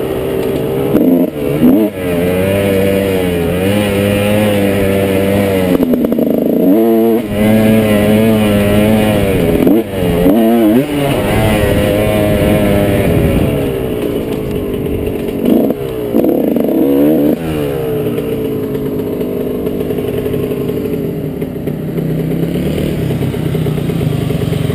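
Motorcycle engine running under way, its revs rising and falling again and again as the rider works the throttle, with several quick drops and swoops in pitch through the shifts.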